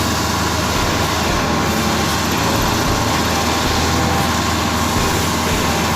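Engine of a heavy road construction machine running steadily, with a constant low hum and no change in speed.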